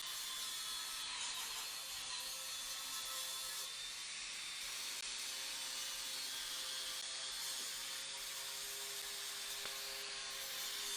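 A grinder running steadily against metal, grinding out a tack weld on a pipe joint.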